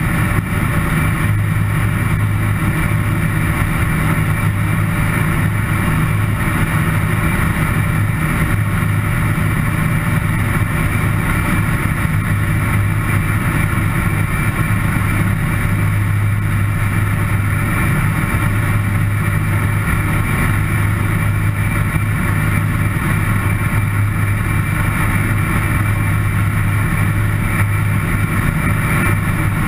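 Avian Adventurer homebuilt light aircraft's engine and propeller droning steadily in cruise flight, picked up by a GoPro mounted outside on the airframe, with a constant low hum and an even rush of air noise above it.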